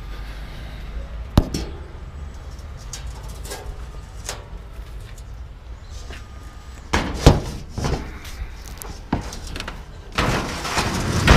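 Scrap metal being handled and dropped: a sharp clank about a second in, a cluster of knocks a little past halfway, and a longer clattering rattle near the end that ends in a loud clank.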